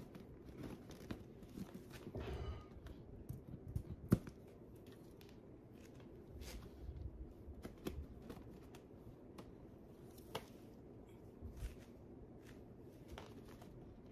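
Faint handling noise from a hand working a clear plastic bobo balloon and its contents: scattered rustles and small clicks, with one sharper click about four seconds in.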